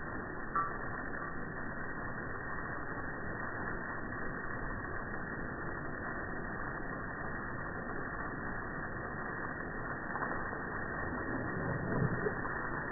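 Steady rushing of a garden hose's water jet spraying on grass, slowed down with slow-motion footage. It swells briefly near the end as the jet hits the dog.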